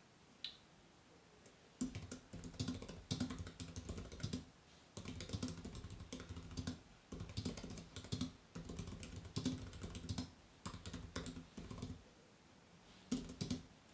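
Typing on a computer keyboard, entering a line of text: quick runs of key clicks with short pauses, starting about two seconds in and ending with a few last taps near the end.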